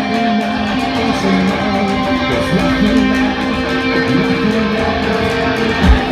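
Live rock band playing loud electric guitars with no vocals, drum hits kicking in near the end.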